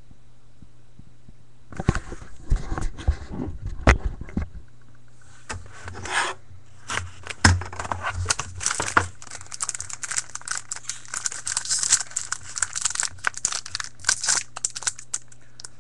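Trading card packaging being torn open and the cards handled: irregular rustling, tearing and scraping with many small clicks, starting about two seconds in and going on with short pauses.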